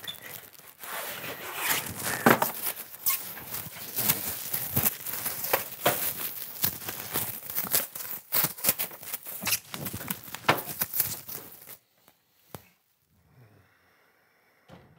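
Plastic sheeting crinkling, tearing and scraping in a frantic tangle of rustles and sharp knocks, cutting off suddenly about twelve seconds in to near quiet.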